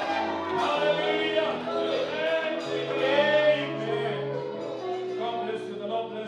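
Church worship music: a voice singing with vibrato over steady held low notes.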